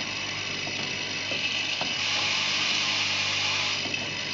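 Twin-spindle automatic machine running as it machines a row of bronze bearing bushings. It makes a steady low hum and high hiss, with a few light mechanical clicks.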